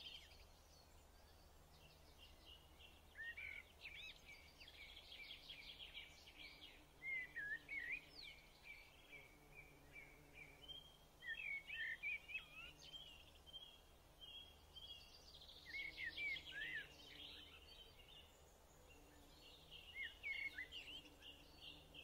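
Faint birdsong: phrases of chirps, sweeping whistles and quick trills coming every few seconds.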